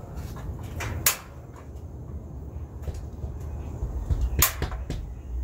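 Propane gas grill being handled: a sharp click about a second in, then a louder metallic clack with a couple of smaller knocks near the end as the hood is lifted open, over a low steady rumble.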